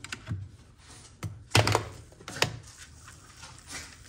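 A few knocks and clunks as an electric kettle is handled, the loudest about a second and a half in, then hot water poured from the kettle into an instant noodle cup.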